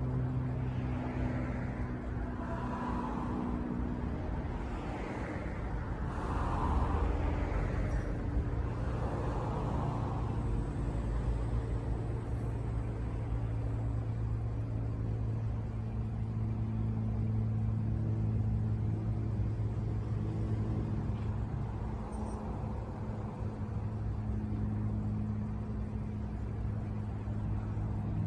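A steady low engine drone, its held tones shifting slowly in pitch, with a few faint swells in the first ten seconds.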